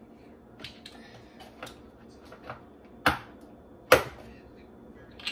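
Light clicks and taps of hands handling ingredients and packaging at a countertop blender. Two sharp clicks about three and four seconds in are the loudest sounds.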